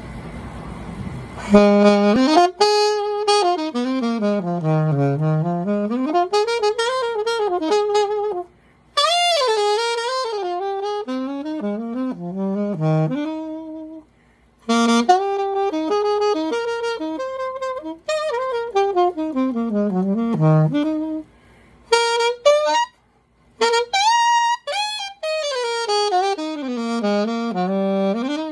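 Alto saxophone played through a Theo Wanne Durga mouthpiece: phrases of quick notes that run down into the low register and back up, broken by several short pauses.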